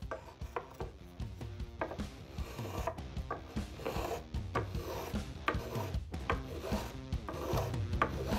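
A metal spokeshave shaving a wooden cutting-board handle in short, quick strokes, about two a second, each a brief scrape of the blade through the wood.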